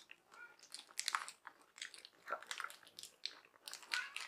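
A bite into a milk chocolate truffle bar, then chewing: faint, irregular small crunches.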